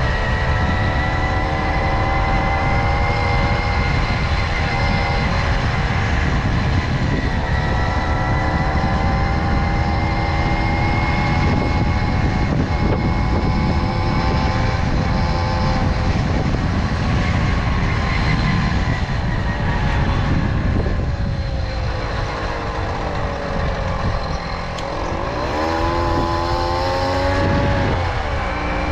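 Tomos moped's small two-stroke engine running under way at a steady pitch. Its pitch sinks as it slows about two-thirds of the way through, then it is revved briefly near the end, with the pitch rising and falling.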